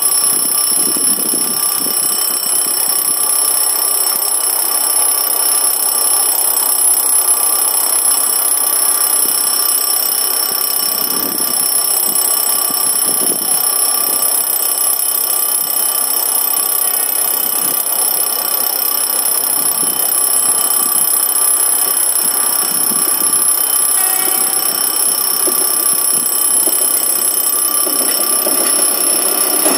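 Level-crossing warning bell ringing steadily and continuously: the crossing signal announcing an approaching train.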